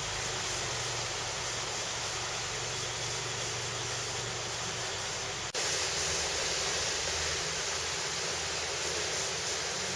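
Steady rushing hiss of outdoor background noise with no distinct events, briefly dipping about five and a half seconds in where the recording is cut.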